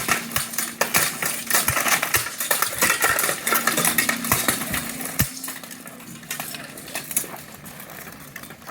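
Blunted steel weapons striking steel armour and each other in full-contact armoured combat: quick, irregular metallic clanks and clashes, thick for about five seconds and then thinning out.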